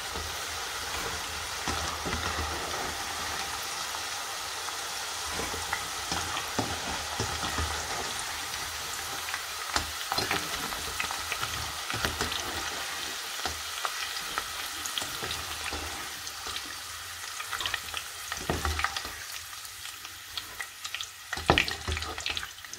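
Potato fries deep-frying in a stainless-steel pot of hot oil: a steady sizzling hiss. A plastic slotted spoon clicks and scrapes against the pot now and then. The sizzle fades over the last several seconds, and the spoon's knocks come louder and closer together in the last two seconds.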